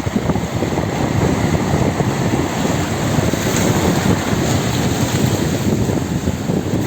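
Wind buffeting the microphone over the wash of sea waves, a steady rumbling noise throughout.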